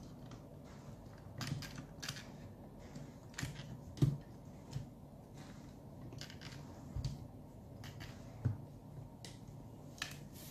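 Plastic parts of a large Weijiang Thunder Leader transforming robot toy clicking and tapping as they are handled and fitted together: about a dozen scattered light clicks, the loudest about four seconds in.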